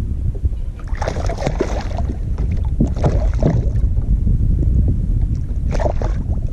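Wind rumbling on the microphone aboard a kayak, with three short bursts of splashing-like noise, about a second in, around three seconds and near the end.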